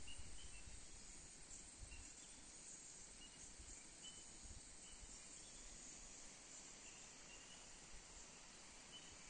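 Faint, steady high-pitched insect chorus from the forest, with short high chirps every second or so.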